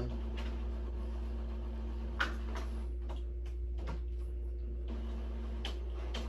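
A steady low electrical hum with a few scattered short clicks and ticks, the sharpest about two seconds in.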